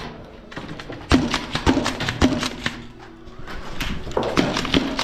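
Footsteps on a gritty concrete floor strewn with debris, a steady walk with a step about every half second. The steps fade briefly in the middle of the stretch, then pick up again.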